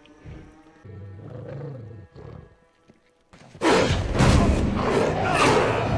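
Film soundtrack: a low wolf growl, then about three and a half seconds in, a sudden loud surge of snarling wolf attack sound mixed with dramatic music.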